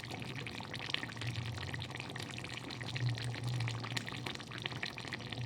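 Thick chicken curry sizzling and crackling in a pan, a dense run of fine pops over a steady low hum.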